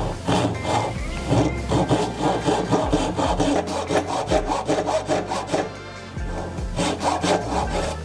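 Hand saw cutting into the end grain of a softwood tenon in short, quick strokes, about four or five a second, with a brief pause a little before six seconds before the strokes resume.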